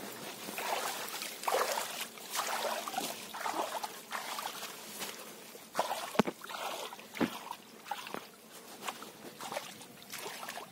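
Water splashing and trickling in irregular spurts as a dense mass of small fish flicks and churns at the surface inside a net, with two sharp clicks about six and seven seconds in.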